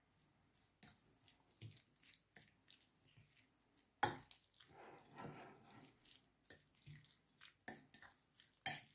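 A fork stirring a moist tuna, egg and cucumber spread in a ceramic bowl: soft wet squelches and irregular light clicks of the fork against the bowl, with sharper clicks about four seconds in and near the end.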